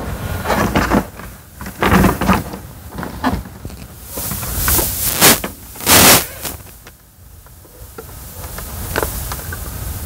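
Handling noise from a small plastic plug-in mini fridge: a series of knocks and rustles as it is moved and its door opened, settling down about seven seconds in.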